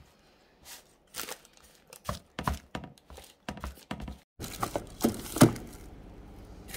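Hands pressing graham-cracker crumbs into a parchment-lined baking tray: short, separate crunches and paper crinkles. About four seconds in it changes to knocks and scrapes as the tray is pushed into a freezer compartment, the loudest knock a second later, over a steady hum.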